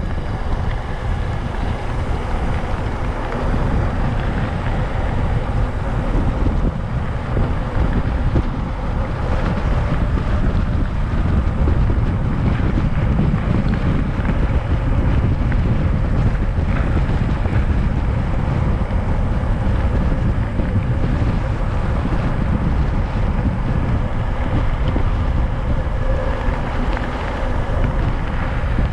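Steady wind rushing on the microphone, mixed with the rumble of a mountain bike's tyres rolling over rough, cracked asphalt.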